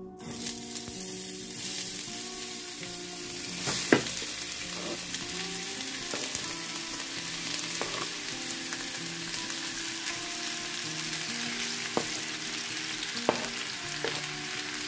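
Thinly sliced onions sizzling in hot coconut oil in a non-stick pan. The steady frying hiss starts suddenly as the onions go in, with a few sharp clicks against the pan along the way.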